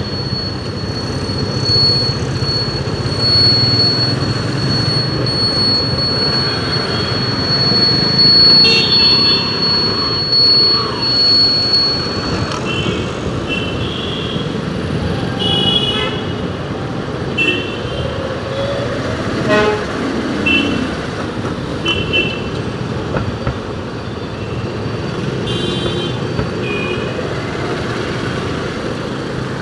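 Road traffic running steadily, with short vehicle horn toots sounding again and again, about eight times.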